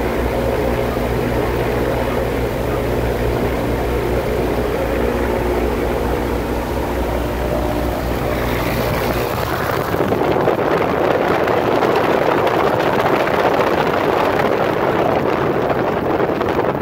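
Grob 109 motor glider's engine running steadily with its propeller turning. About ten seconds in, the even engine hum gives way to a louder rushing of propeller wash blowing on the microphone.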